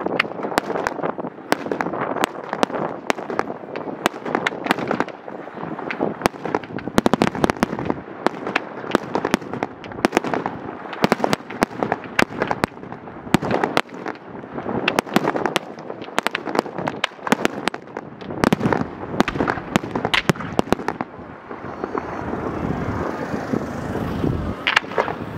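Professional fireworks display: a dense, continuous run of sharp bangs and crackling from many shells bursting. Near the end the bangs thin out for a few seconds into a steadier rushing noise.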